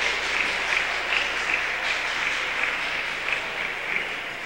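Audience applauding, a steady patter of many hands clapping that fades away near the end.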